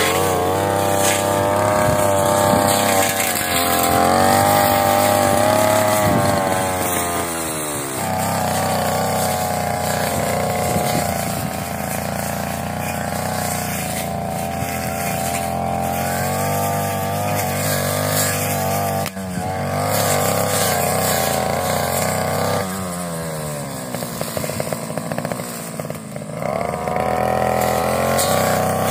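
Brush cutter engine running at high revs while cutting grass. Its pitch drops twice as the throttle is eased, about seven seconds in and again near the end, then rises back up.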